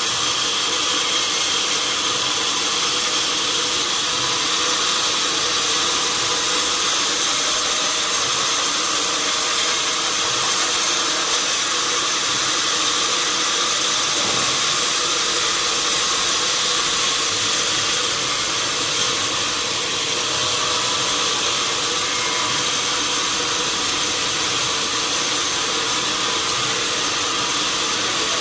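Sawmill machinery running steadily: a constant loud, hissing mechanical noise with several steady whining tones.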